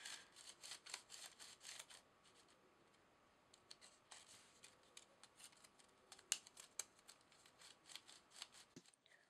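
Faint quick clicking of a plastic Paterson film-developing spiral being ratcheted, its two halves twisted back and forth to wind the film onto the reel. A rapid run of clicks in the first two seconds gives way to scattered single ticks.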